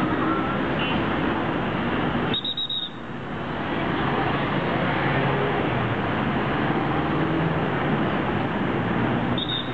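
Busy city intersection traffic: cars and buses passing in a steady, dense din, with a short dip in the sound about two and a half seconds in.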